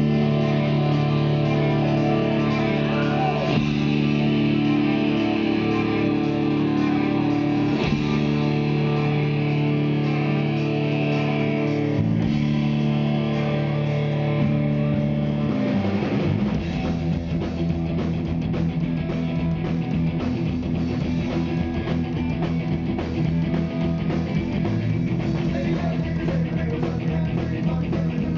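Live rock band playing amplified electric guitars, bass guitar and drum kit. Long held chords ring for about the first fifteen seconds, then the playing turns busier and more rhythmic.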